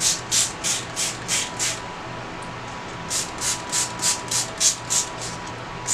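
Trigger spray bottle squirting water onto a moss-and-cork-bark orchid mount, soaking the crispy-dry moss: quick hissing squirts about three a second, pausing for about a second near the middle, then going on again.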